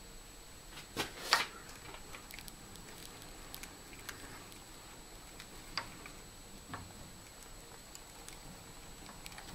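Sparse light clicks and ticks over quiet room tone, the two loudest close together about a second in, with a faint steady high whine underneath.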